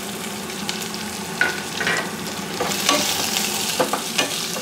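Sliced red onions sizzling as they fry in hot oil in a pot, the first stage of a biryani base. A spatula stirs them, scraping and knocking against the pot a few times.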